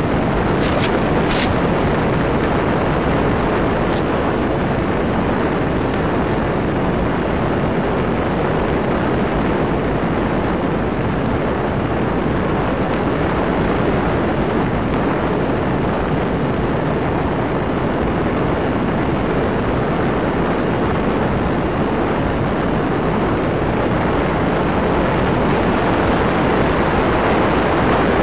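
Steady rushing noise of an FPV model plane in flight, picked up by its onboard camera microphone: wind and the electric motor as one even noise, with no clear motor whine. A few short crackles about a second in.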